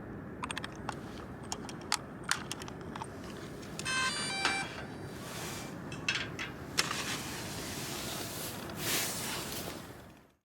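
Steady rushing riverside background of flowing water and wind, with scattered clicks and clatter of small gear being handled and a brief metallic ring about four seconds in.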